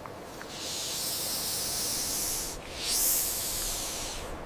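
Snake hissing: two long hisses, the second starting about three seconds in.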